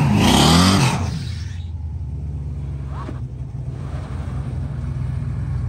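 Race-car engine revving up and down hard for about the first second and a half, then settling into a steady low idling rumble.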